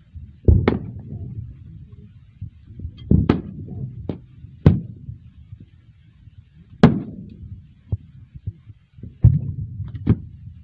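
Sporadic gunfire: sharp single shots at uneven intervals of about one to two seconds, the loudest about seven seconds in, with a low rumble between them.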